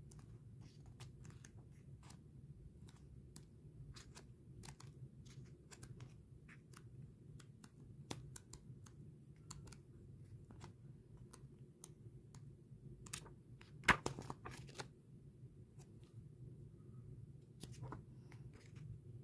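Pages of a paperback manga volume being handled and turned by hand: soft scattered paper rustles and ticks, with one louder flurry of page flipping about fourteen seconds in, over a low steady hum.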